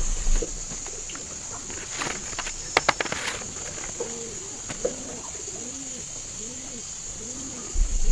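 Dove cooing: a run of about six rising-and-falling coos in the second half, over a steady high hiss. A few sharp clicks and knocks come before it.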